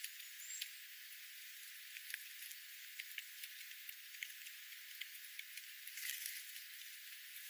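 Faint outdoor ambience: a steady hiss scattered with light clicks and ticks, and one brief high bird chirp about half a second in.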